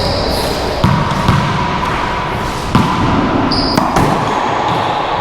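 Racquetball rally in an enclosed court: about five sharp cracks of the ball off racquets and walls at uneven intervals, each with a short echo, over a steady background hum.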